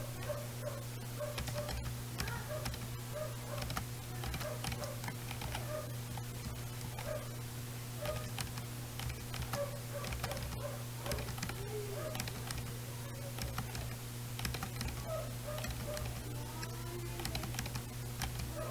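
Typing on a computer keyboard: a fast, irregular run of key clicks over a steady low hum.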